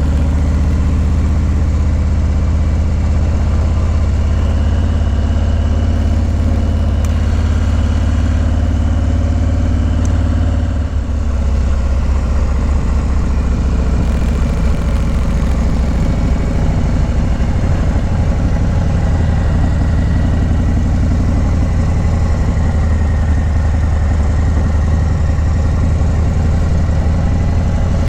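2020 Harley-Davidson Low Rider S's Milwaukee-Eight 114 V-twin engine running steadily as the bike rides along, with a brief drop about eleven seconds in.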